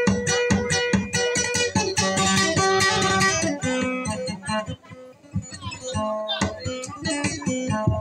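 Instrumental break of a dayunday song: a plucked string instrument plays a quick, repeated-note melody, with a brief pause about five seconds in.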